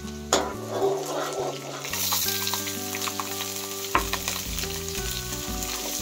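Chopped onions and green chillies sizzling in hot oil with cumin and garlic in a kadai, with the sizzle growing louder about a third of the way in. A metal spoon stirs and scrapes the pan, with a few sharp clinks against the metal.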